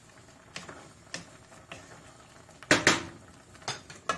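Glass pot lid with a metal rim being handled and set onto a cooking pot: a few light clicks, then two sharp clacks close together a little under three seconds in, and another couple of knocks near the end.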